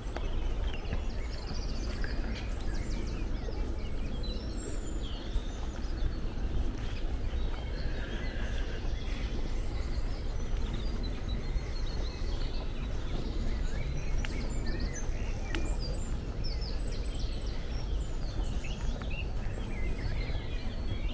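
Birds chirping and calling on and off over a steady rushing background noise, which the walker takes for running water, something like a waterfall.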